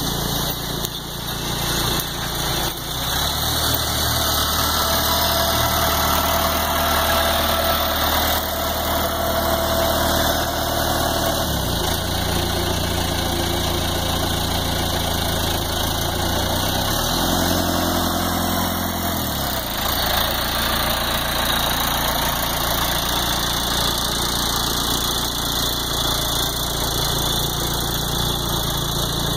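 Tractor engine running steadily as it works a Nut Row Pro almond orchard implement, under a broad mechanical hiss. The engine note shifts about twelve seconds in, then rises and falls back between about seventeen and twenty seconds.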